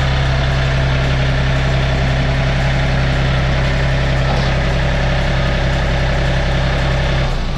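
Farm tractor engine running steadily with a low, even drone, cutting off abruptly near the end.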